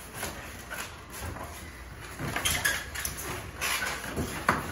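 Spiral twisted latex balloons rubbing and squeaking against one another as they are carried in a bunch, in irregular scrapes with a sharper squeak near the end.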